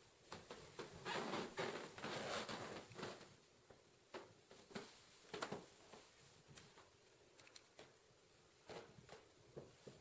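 Faint rustling for the first few seconds, then scattered light taps and clicks at irregular intervals: footsteps and handling noise of a person walking through an empty room while carrying a handheld camera.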